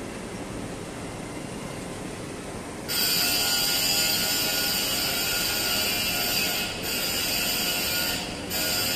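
Automated guided vehicle hauling a loaded bathtub cart across a factory floor. A loud, high-pitched mechanical noise starts suddenly about three seconds in, breaks off briefly twice, and stops near the end.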